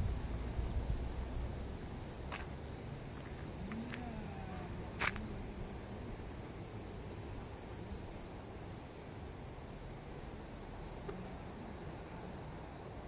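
Night insects chirring steadily in a high, rapidly pulsing trill. There is a low rumble in the first couple of seconds, and a sharp click about five seconds in.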